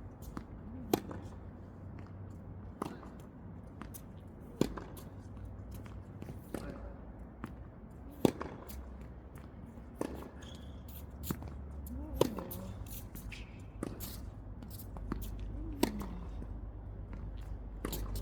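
Tennis balls struck back and forth with rackets in a drill rally: a series of sharp pops about every one to two seconds, some louder and some fainter.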